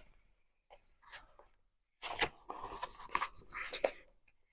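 Paper pages of a planner notebook being flipped by hand: a few faint rustles, then a quicker run of crisp page rustles about two seconds in.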